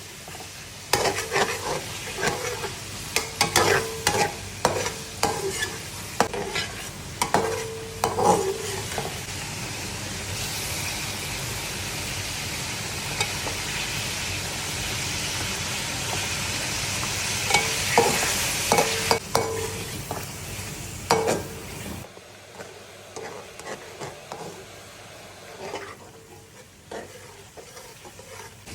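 Chicken frying in plenty of oil in a karahi, sizzling, while a spatula stirs and scrapes against the pan. The clatter of stirring is busiest early on. A steady sizzle swells in the middle and drops away suddenly about two-thirds through, leaving quieter scraping.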